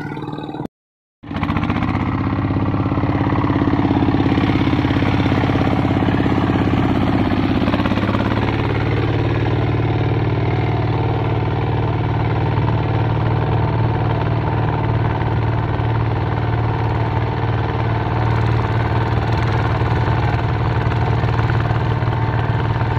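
Two-wheel hand tractor's single-cylinder diesel engine running steadily under load as it pulls a furrowing plough through the soil. The sound drops out for half a second about a second in, and the engine's tone shifts about eight seconds in.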